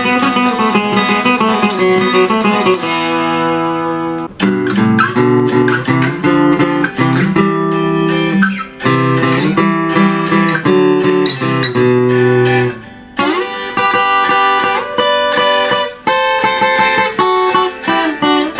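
Acoustic guitar played fingerstyle, plucked notes and strummed chords in a slow, relaxing piece, with brief pauses about four seconds in and again near thirteen seconds.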